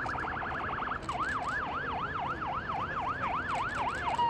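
Fireboat siren sounding, switching about a second in from a fast yelp to a slower up-and-down wail of about three sweeps a second.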